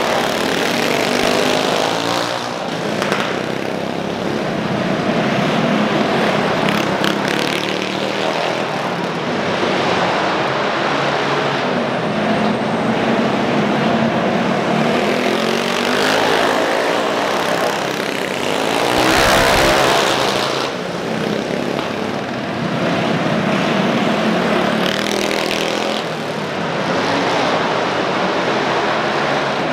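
Several racing mini bikes' small single-cylinder four-stroke engines running hard around a dirt track, the drone swelling and fading as the bikes go round, loudest about two-thirds of the way in as one passes close.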